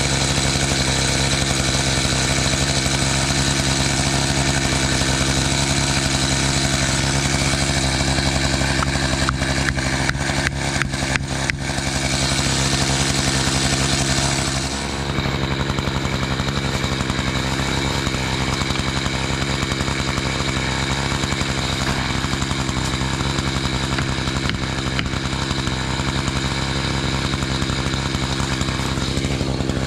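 Gas chainsaw running steadily at high speed, cutting wood, with a quick run of sharp clicks about ten seconds in.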